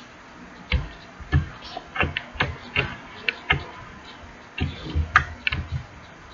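Slime being mixed and squished, giving a string of irregular sticky clicks and pops, with a pause of about a second before the last few.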